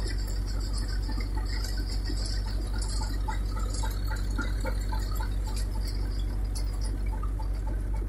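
Tractor-powered groundnut thresher running steadily: a constant engine hum under the churning of the threshing drum, with scattered light ticks.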